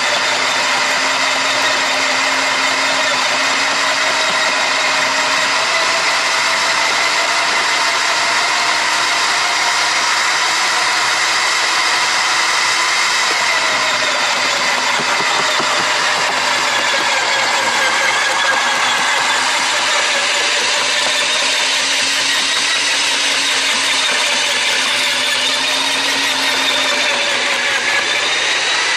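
Sun Joe electric wood chipper running continuously as brush branches are fed in and chewed into chips, its motor whine sagging in pitch and recovering as it takes the load.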